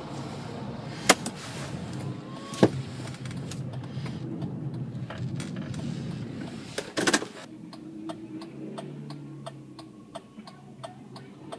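Knocks and clunks inside a car's cabin, the loudest a double knock about seven seconds in; after it a steady run of evenly spaced clicks, the hazard-flasher relay ticking.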